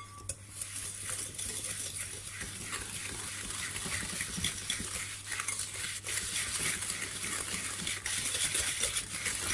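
Small wire whisk beating sugar and oil in a glass bowl: a steady, rapid scratching with light ticks of the wires against the glass.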